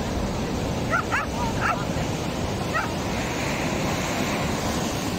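Ocean surf breaking and washing over shoreline rocks, a steady rush, with four or five short, rising high-pitched calls between about one and three seconds in.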